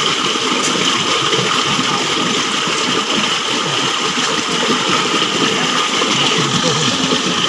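Stream water flowing and splashing over rocks, a steady rush.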